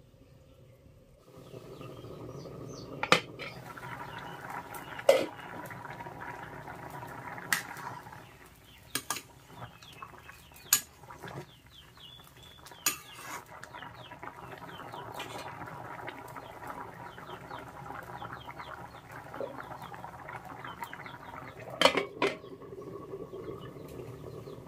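A metal ladle knocking and scraping against a pan of simmering cauliflower and fish curry, a sharp clink every second or two, over the steady bubbling of the curry. Near the end the aluminium lid clatters back onto the pan.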